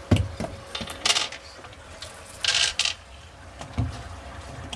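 Clicks and metallic rattles of a cabinet door and its metal bar pull being handled as the door is swung. A louder scraping rattle comes about halfway through, and a dull knock near the end.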